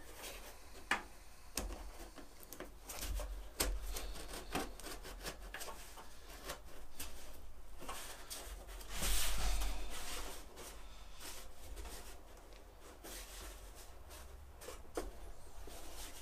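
Plaster-coated slat tip pattern being test-fitted into the open end of a riveted aluminium wing slat: intermittent rubbing and scraping with scattered light clicks and taps, loudest about nine seconds in.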